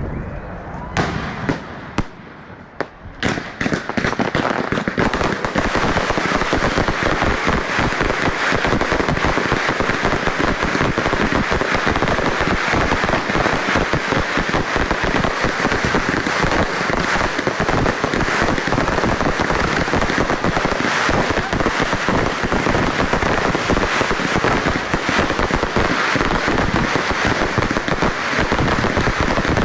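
Display fireworks going off: a few separate bangs in the first three seconds, then a dense, unbroken crackling and popping of many shells that lasts to the end.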